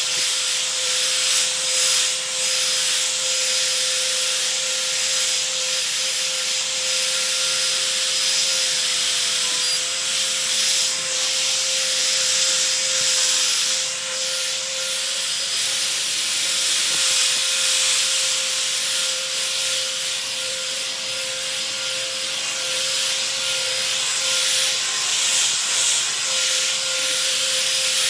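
LG vacuum cleaner running: a steady rushing hiss of air with a constant whine from the motor, swelling and dipping slightly as it is moved.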